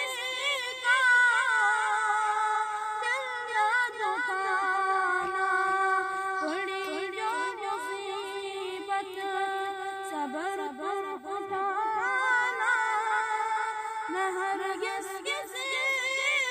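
A boy singing a naat, a devotional song in praise of the Prophet, with no instruments, in a high voice whose melody wavers and curls in constant ornaments.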